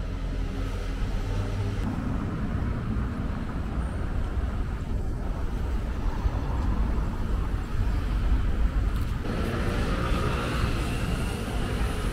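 City road traffic: cars passing, with a steady low rumble.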